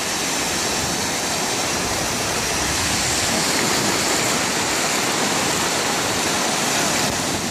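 Ocean surf breaking and washing up over a sandy beach, a steady rushing hiss.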